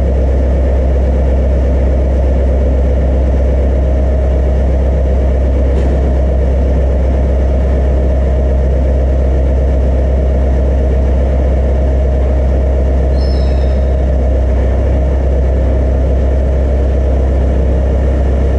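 Heavy engine running steadily at an even speed, a loud deep drone that does not change.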